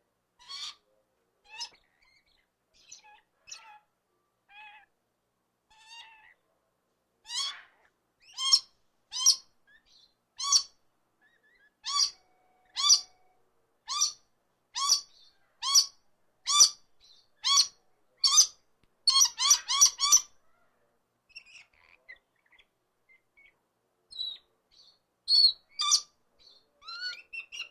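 A bird calling in short, sharp calls. A few scattered calls come first, then from about seven seconds in a steady run of calls at roughly one a second. These break into a quick flurry about twenty seconds in and are followed by a few scattered calls near the end.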